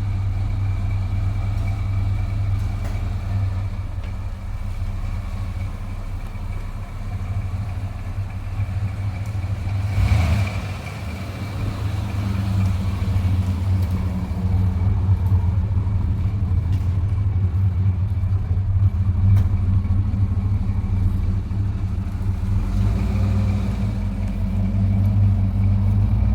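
Car engine idling steadily with a low drone, with one short louder burst about ten seconds in.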